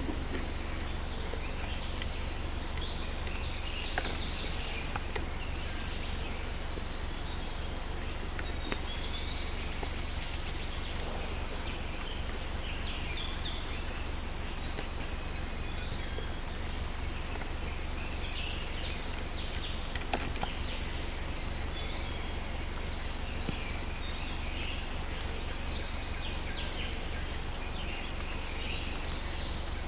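Forest ambience: a steady high insect drone with scattered bird chirps, and a run of short repeated chirps near the end, over a steady low rumble.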